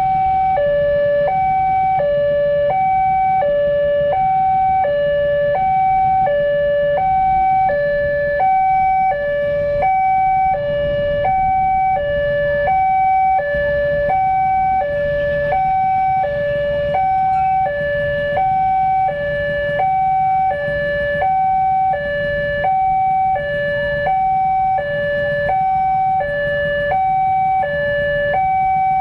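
Railway level-crossing warning alarm sounding: an electronic two-tone signal alternating evenly between a higher and a lower note, repeating steadily, with a low rumble underneath. It signals that a train is approaching and the barriers are closed.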